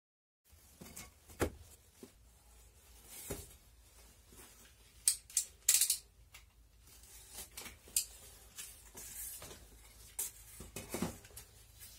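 Workshop handling noises: a rubber hose and a plastic snap-off utility knife being picked up and moved about on cardboard, with two soft knocks early on and a few short scraping rustles about five to six seconds in.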